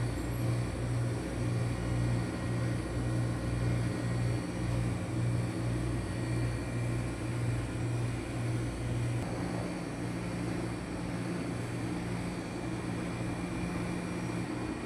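Steady low machine hum, throbbing about twice a second and then smoothing out about nine seconds in.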